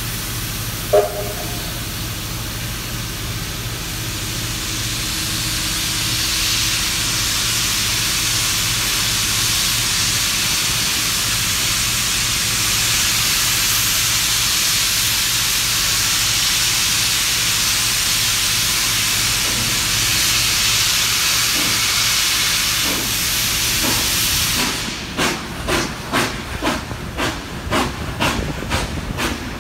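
Steam locomotive moving off: its cylinder drain cocks blow a steady, loud hiss of steam, with a short whistle blast about a second in. Near the end the hiss stops and the exhaust beats come through, about two to three chuffs a second, as the engine starts to pull.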